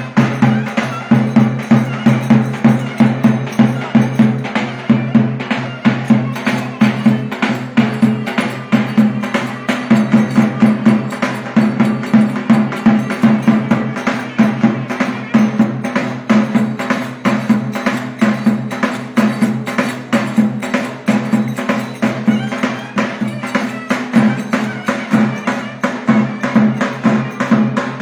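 Turkish folk dance music from a davul bass drum and a zurna, with dense, even clacking percussion, typical of köçek dancers' hand-held wooden clappers (çarpare), over a steady held tone.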